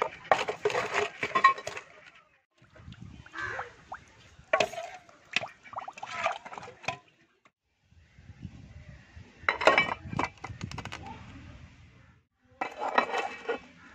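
Large sea snail shells clinking and knocking against one another and against the bowl as they are handled, in several short bursts of hard clicks with pauses between.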